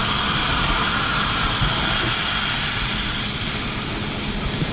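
Air hissing out of a fire hose nozzle as incoming water pushes it out of the line while the hose charges: a loud, steady rush.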